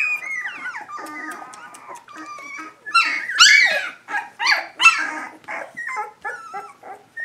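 A litter of three-week-old Standard Schnauzer puppies vocalizing: many short, high whimpers and yips that glide up and down in pitch. They are loudest between about three and five seconds in.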